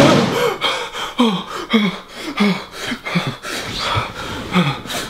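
A man panting hard in short, voiced gasps, about two a second, each one falling in pitch.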